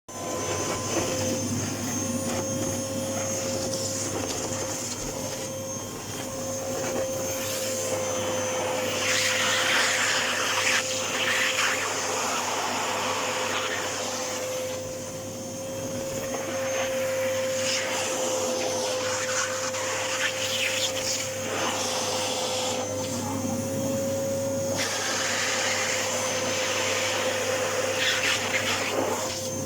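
Vacuum cleaner running continuously with a steady whine, its rushing noise swelling louder for a few seconds about ten seconds in and again near the end.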